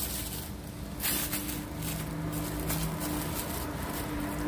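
A metal spoon pressing and scraping soft vegetable rice porridge flat in a plastic-lined container, in repeated short strokes. A steady low hum runs underneath.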